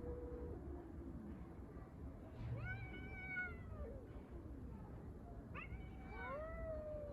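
Street cats yowling in long, drawn-out calls that slide up and down in pitch: the threat yowls of cats squaring off in a fight. There are three calls, and the last one, about five and a half seconds in, rises and then slowly sinks.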